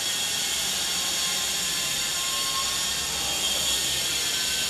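Steady, even hissing background noise with a faint low hum, unbroken throughout.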